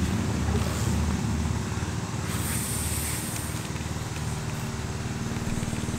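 A steady low mechanical drone with a fast flutter, like a small engine running.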